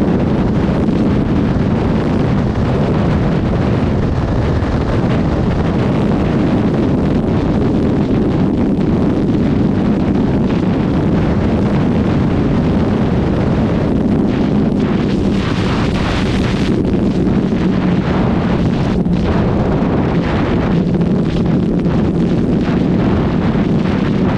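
Heavy wind noise buffeting the microphone at motorway speed on a first-generation Suzuki GSX1300R Hayabusa, over the steady drone of its inline-four engine. A louder rush of wind comes about fifteen seconds in.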